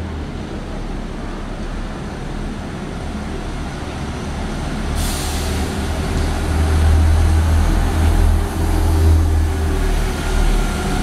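Biogas-powered Scania N280 Enviro400 City double-decker bus driving past, its engine hum growing louder as it draws level. A brief sharp hiss of air about five seconds in.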